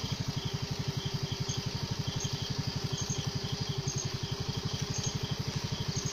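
An engine idling nearby: a steady low putter of about ten even beats a second.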